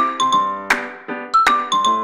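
Light background music: a tune of bright, bell-like struck notes, each ringing and fading quickly, several a second.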